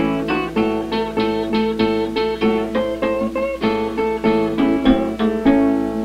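Acoustic guitars playing a picked country-blues passage without singing, several plucked notes a second, from a 1933 78 rpm record.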